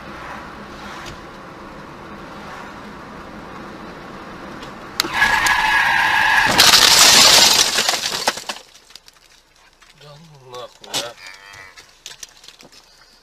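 Car running at road speed, then about five seconds in a sudden loud squeal with a steady tone, followed by a loud crash as a cow strikes the car's bonnet and windshield, cracking the glass. A short low moo follows once it is quiet again.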